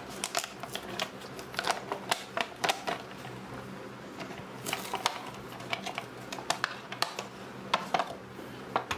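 Stiff clear plastic blister packaging being pried and peeled off its cardboard backing card, giving irregular crackles and sharp clicks.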